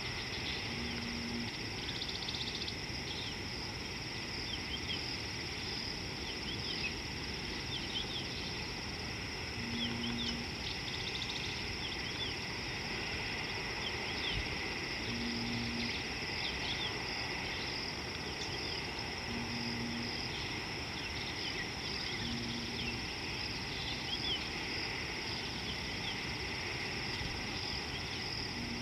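Insects droning steadily at a high pitch, with many short bird chirps scattered throughout and a brief low tone every few seconds.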